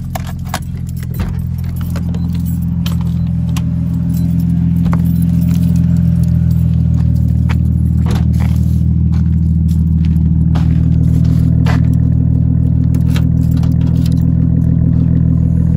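Nissan Skyline R34's straight-six engine idling, a steady low drone that grows louder over the first few seconds and then holds. Keys jangle and scattered clicks sound over it as the trunk lock is worked with a key near the end.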